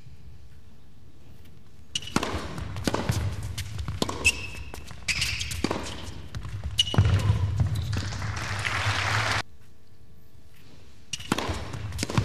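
Tennis rally on an indoor hard court: rackets strike the ball, it bounces on the court and shoes squeak, in a reverberant hall. It starts after about two seconds of low hum, rises into a denser wash of crowd noise and cuts off abruptly, and another rally starts near the end.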